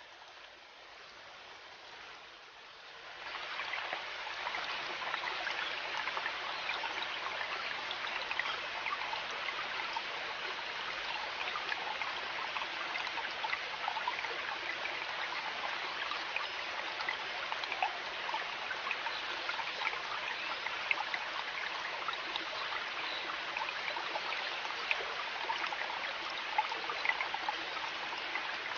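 River water flowing and babbling in a steady rush with small splashy patters. It steps up in loudness about three seconds in and then holds steady.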